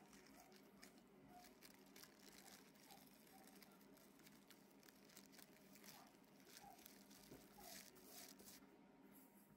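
Faint, irregular crinkling and rustling of baking paper as it is wrapped around a log of dough and rolled on a table.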